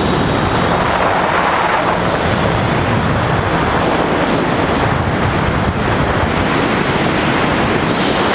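Loud, steady rush of wind buffeting the onboard camera's microphone on a flying tricopter, with the faint steady hum of its electric motors and propellers underneath.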